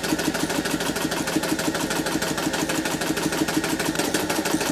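Singer 201 sewing machine, driven by a replacement YDK motor with an electronic foot pedal, stitching through leather at a steady speed. The needle mechanism gives a rapid, even beat over the motor's hum.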